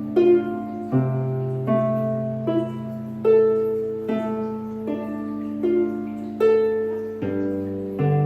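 A Monaghan's harp played solo in a slow, calm improvisation. A single plucked note comes about every 0.8 s, with ringing bass notes held underneath that change about a second in and again near the end.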